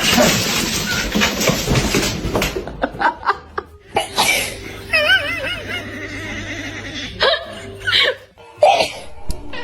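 Laughter over background music, broken by several short, sharp bursts of sound.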